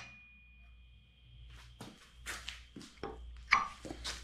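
A few short, irregular rustles and light knocks of someone moving about and handling things at a steel workbench: clothing rustling and footsteps, with a faint steady high tone in the background.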